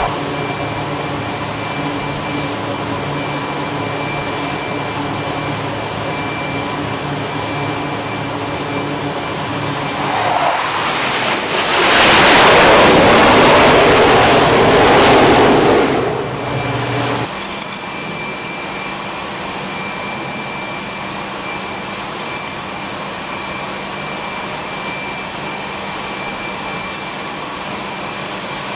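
Jet engines of F/A-18 fighters running on a carrier flight deck, a steady loud noise. About a third of the way in, one jet's engines swell to full power for roughly five seconds, then the noise drops back to the steady background.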